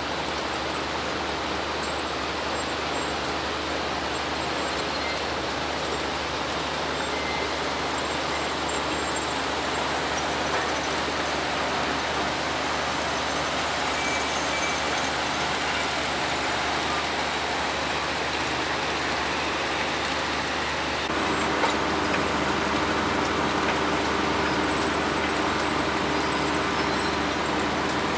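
Hydraulic trash skimmer boat's engine and machinery running steadily. About 21 seconds in, a deeper hum joins and the sound grows a little louder.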